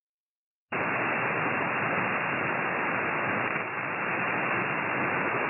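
Steady hiss of band noise from a Flex 6500 software-defined radio's SSB receive audio, with no station audible. It starts abruptly about a second in and stops just as abruptly at the end.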